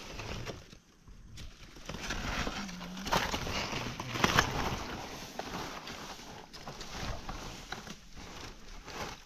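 Irregular rustling and crackling of dry leaf litter and twigs, with scattered sharp snaps, from walking and handling things on the forest floor.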